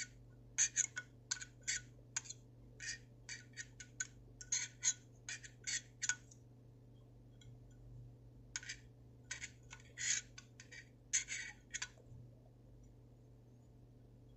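Quick runs of small clicks and scratches from the metal insert of a Zippo-style lighter being handled while cotton wadding is pushed into it. The clicks come in two spells, with a pause of about two seconds near the middle.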